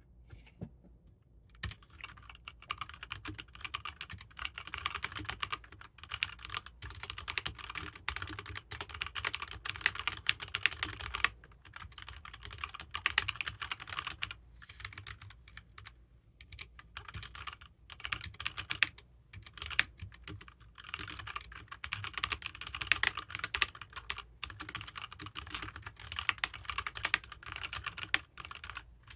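Typing on a HyperX Alloy Origins mechanical keyboard with HyperX Red linear switches. Fast, continuous keystroke clicks and clacks start about two seconds in, broken by a few short pauses.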